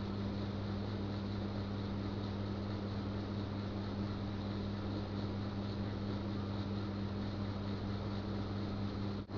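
Steady low electrical-sounding hum over a constant hiss, which drops out for an instant near the end.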